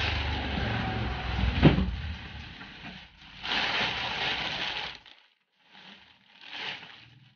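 Plastic bag around a laser printer rustling and crinkling as the printer is handled, with one sharp knock about a second and a half in. A second stretch of rustling follows, then two brief soft rustles near the end.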